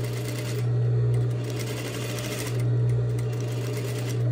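Sewing machine stitching a long seam down two layered fabric strap strips, running in short spurts with a steady low hum between them.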